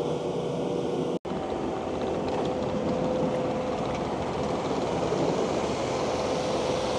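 Takeuchi TL12V2 compact track loader running on high-flow hydraulics, driving a Conetex soil conditioner attachment: a steady machine drone with a faint steady whine. The sound cuts out for an instant about a second in.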